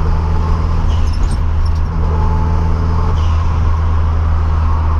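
Turbocharged VW Gol's engine and drivetrain running steadily, heard from inside the cabin, with a constant roaring drone from a failing gearbox. The owner puts it down to wear of the crown-and-pinion and the gears inside the gearbox.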